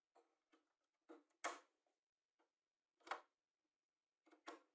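Scattered light clicks and taps of small metal tools, an automatic center punch and countersink bits, being set into the holes of a plywood drill bit organizer. The two loudest taps come about a second and a half in and about three seconds in.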